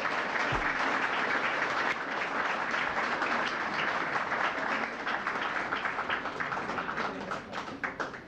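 Audience applauding, the clapping thinning to scattered separate claps near the end, then cutting off suddenly.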